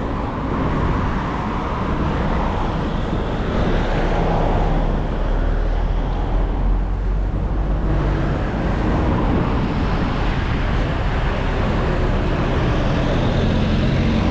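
Road traffic: motor vehicles passing close by, a steady rush of engine and tyre noise, with an engine's low hum growing more prominent near the end.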